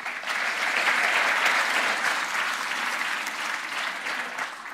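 Large audience clapping, starting abruptly, holding steady, then thinning out near the end.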